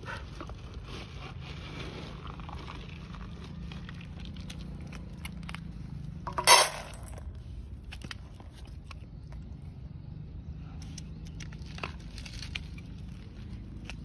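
A dog eating dry kibble from a steel bowl: scattered small crunches and clicks over a low steady background hum, with one sudden loud clatter about six and a half seconds in.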